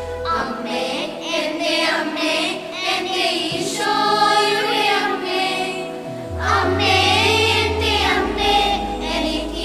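Children's choir singing in unison, with low held bass notes underneath that shift about six seconds in.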